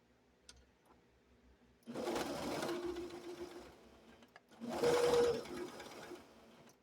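Electric sewing machine running in two short bursts, each lasting a second or two, stitching over a hole in an old quilt.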